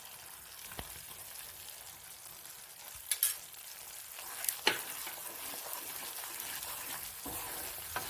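A thickening paste of pepper, palm sugar and coconut milk sizzling in sesame (gingelly) oil in a pan as it is stirred, with a few sharper scrapes of the spoon around three and four and a half seconds in.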